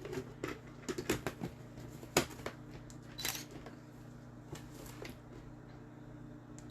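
Irregular clicks, taps and knocks of kitchen utensils and containers being handled, the sharpest knock about two seconds in, over a steady low hum.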